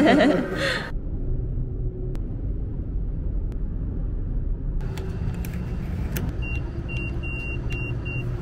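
Car driving, with a steady low road-and-engine rumble. Near the end, a run of five short, evenly spaced high beeps sounds over it.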